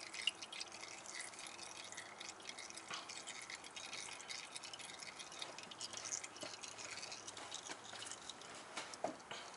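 Used motor oil dripping and trickling faintly from the opened oil filter housing, through a funnel into a drain pan, with many small irregular drips. A single light knock comes just after the start.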